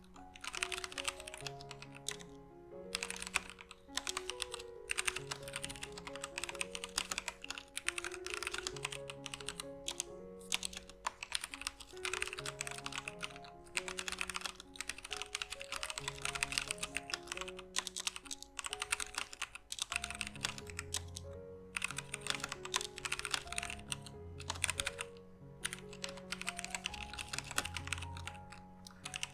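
Typing on a Womier K66 60% mechanical keyboard with Gateron Brown switches: fast runs of key clacks broken by short pauses. Background music plays under it, and a bass line comes in about two-thirds of the way through.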